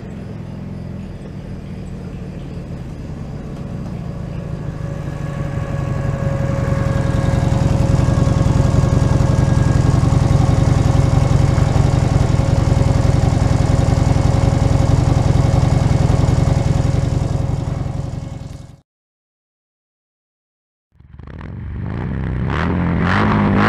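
2007 Buell XB9 SX's air-cooled V-twin, fitted with a Penzl exhaust with its flap closed, growing louder as the bike comes up from a distance and then running steadily beside the microphone. The engine sound cuts off about 19 s in, and after a short silence rock music with distorted guitar starts near the end.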